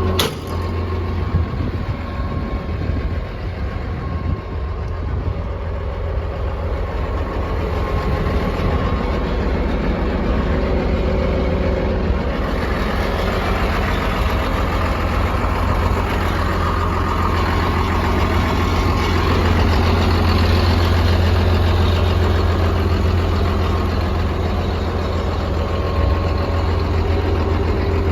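Komatsu D41P-6 bulldozer's diesel engine, a new engine with under 10 hours on it, idling steadily with a deep low hum. It grows somewhat louder over the first dozen seconds.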